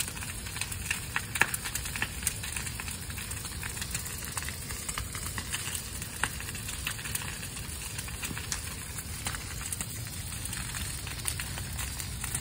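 Bonfire of branches and dry brush burning, with steady crackling and frequent sharp pops over a low rush of flame.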